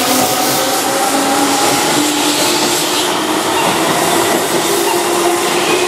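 Keihan electric train, formation 1505, pulling out of the station: its traction motor whine rises steadily in pitch as it gathers speed, over a steady running noise from the cars.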